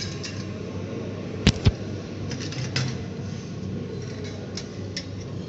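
Metal Rubik's cube pieces knocking and clicking against each other as they are handled and fitted together: two sharp knocks in quick succession about a second and a half in, then a few lighter clicks.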